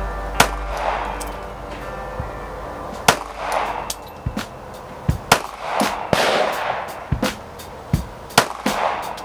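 Glock 42 .380 pistol firing single shots with a few seconds between them, about five in all, over background music.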